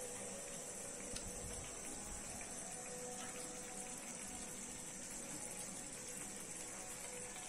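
Prawn gravy simmering in a kadai: a faint, steady bubbling hiss.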